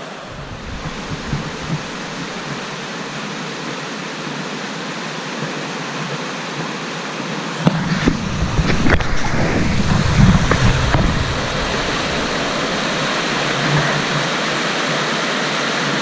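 Rushing white water of a small river's falls and rapids, a steady hiss. About eight seconds in, a few heavier low rumbles and faint knocks sound over it for three seconds or so.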